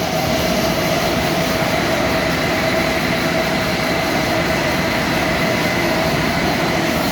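Three-ply toilet paper rewinding machine running steadily: a loud continuous mechanical drone with a steady whine over it.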